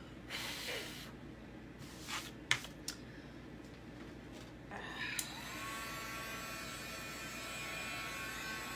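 A small electric motor spins up about five seconds in, runs steadily with a whirring hum for about four seconds, then winds down. Before it come a brief rustle and a few light handling clicks.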